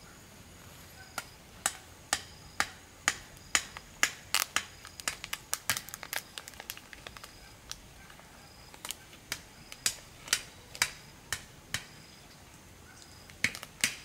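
A run of sharp clicks or knocks at an uneven pace of about two a second, starting about a second in, thinning out after about ten seconds, with two more close together near the end.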